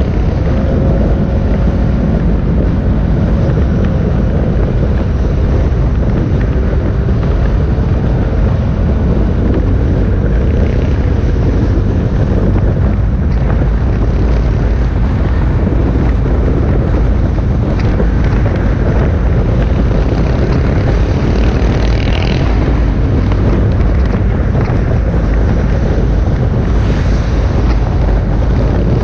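Many motorcycle engines running together as a long procession of bikes rides by, a steady loud rumble with wind buffeting the microphone.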